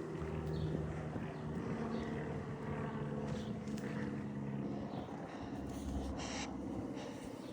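Snoring: a steady, low-pitched drone from sleepers breathing in their sleep.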